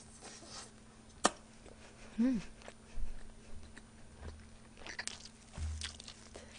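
Close-miked chewing of a mouthful of braised chicken (jjimdak), with wet mouth clicks and smacks and one sharp click a little over a second in. There is a brief hum of the voice about two seconds in.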